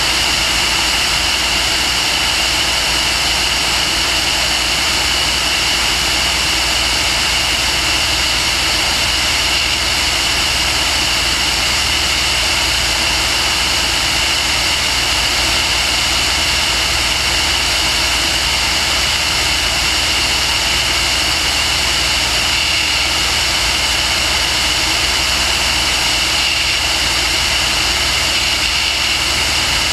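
Steady high whine of the motors and propellers of the aircraft carrying the camera in flight, with a low wind rumble underneath.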